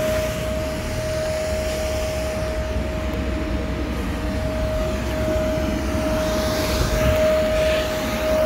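Electric blower that keeps an inflatable obstacle course inflated, running steadily: a constant whine over a low rumble.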